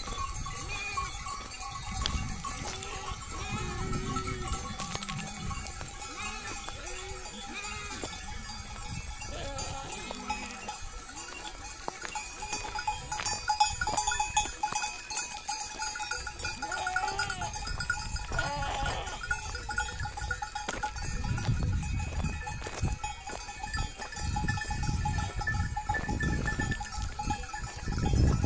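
Flock of sheep bleating, with repeated short calls over the steady ringing of neck bells.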